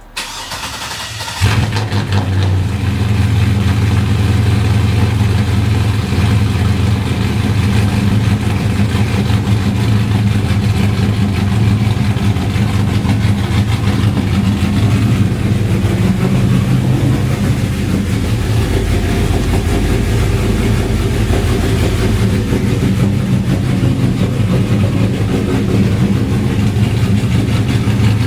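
Porsche Cayenne cold start: the starter cranks for about a second and a half, then the engine catches and runs at a steady idle.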